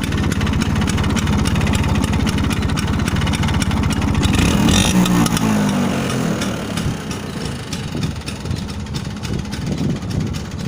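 Bajaj Chetak scooter's single-cylinder two-stroke engine running, its exhaust popping rapidly. The engine is revved up about four seconds in, then drops back.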